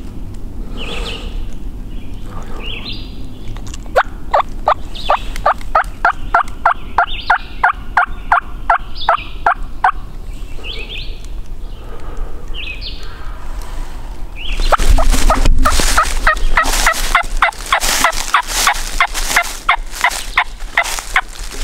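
Turkey calling: two long runs of quick, evenly spaced notes, about three or four a second. The second run begins about fifteen seconds in and is louder.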